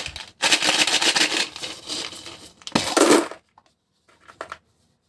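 Plastic toy packaging being handled, crinkling and tearing for about two seconds, then a louder crackling burst about three seconds in, followed by a few light clicks.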